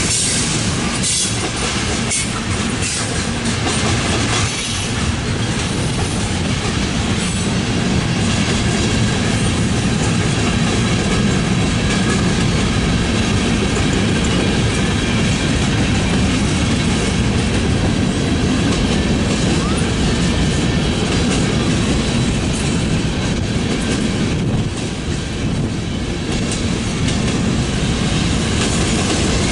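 Freight cars rolling past close by: tank cars, covered hoppers and boxcars with their steel wheels clattering over the rail joints in a steady, loud rumble with scattered clicks.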